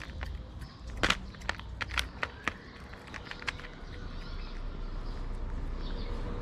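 Cat crunching dry kibble close to the microphone: a run of sharp crunches in the first half, then a steady low background hum that grows louder.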